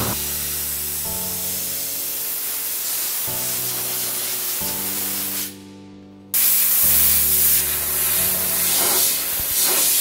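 Compressed-air blow gun blasting air over a freshly wet-blasted alloy wheel to dry it, a loud, steady hiss. The air cuts off about five and a half seconds in and starts again under a second later.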